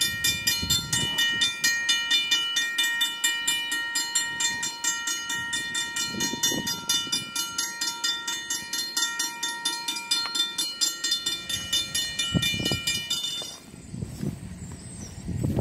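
Railroad grade-crossing warning bell ringing in rapid, even strikes while the crossing lights flash and the gates come down for an approaching train. It cuts off abruptly about three-quarters of the way through, after which there are only a couple of low thumps.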